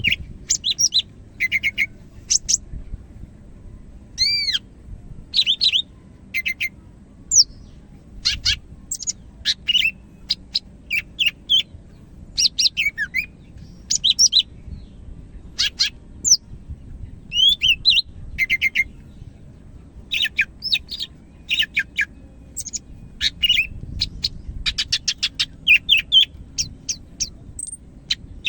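Cucak hijau Medan (green leafbird) singing in full 'gacor' voice: a long, nearly unbroken run of varied sharp chirps, high whistles and quick trills, with only short pauses between phrases.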